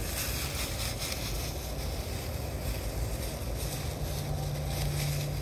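Wind buffeting the microphone: a steady low rumble with a hiss over it. A low steady hum joins about four seconds in.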